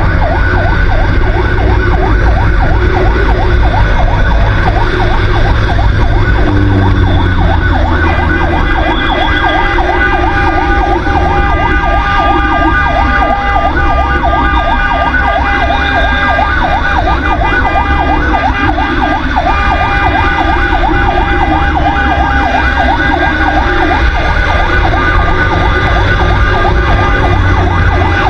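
Fire truck siren wailing in a fast, evenly repeating up-and-down yelp, with a steadier tone layering in about eight seconds in, over a heavy low rumble of engine and wind on the microphone from the moving truck.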